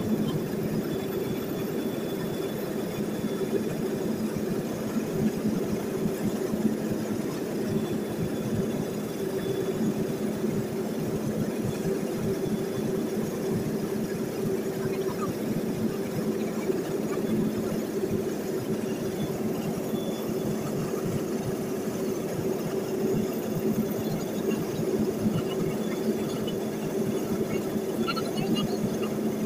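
Cabin noise of a small high-wing propeller plane in flight: a steady engine and propeller drone with an even rushing noise.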